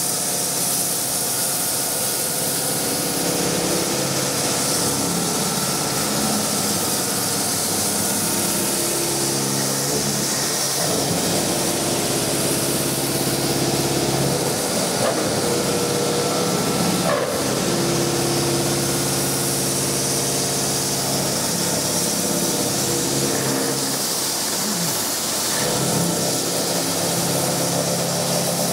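TOS FUT machining centre milling a Francis turbine runner with its angled milling head: steady machine and cutting noise over a high hiss, with several pitched tones that shift in steps every several seconds, and one sharp click about 17 seconds in.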